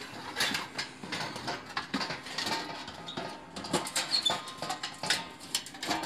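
Metal clinking, rattling and scraping as the wire guard and top of a DuraHeat kerosene heater are lowered and fitted back into place: a string of irregular small clicks.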